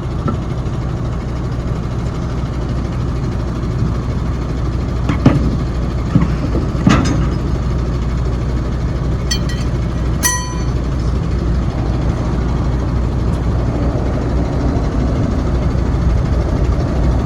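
Truck engine idling steadily, with a few sharp knocks and a short ringing clink near the middle.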